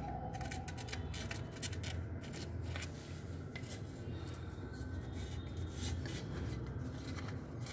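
Faint rubbing and rustling with many small clicks: a hand and a felt-tip sketch pen working against the wall under a ceramic washbasin, marking where it is to be fixed.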